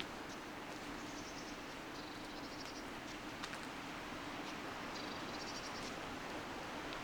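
A small songbird singing three short, high, fast-trilled phrases over a steady rushing background of wind.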